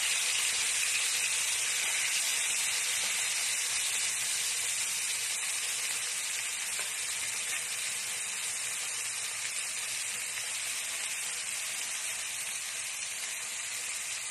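Galunggong (round scad) frying in hot oil, a steady sizzle that eases off slightly toward the end.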